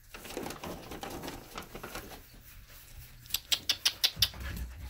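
Dogs shifting about on a tile floor: scuffling paws, then a quick run of sharp claw clicks on the tiles about three seconds in.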